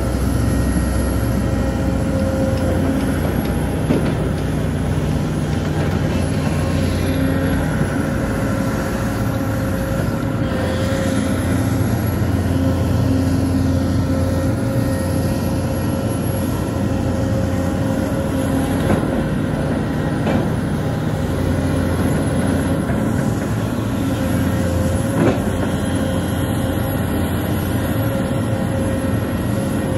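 Sumitomo excavator's diesel engine and hydraulics running steadily under load, with a steady hum and a few sharp metallic knocks, one about four seconds in and three more in the last third.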